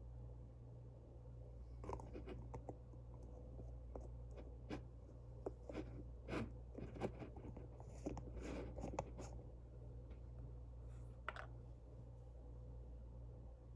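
Scattered light clicks and scratchy rustles from small things being handled, bunched between about two and nine seconds in, with one more click near the end, over a faint steady hum.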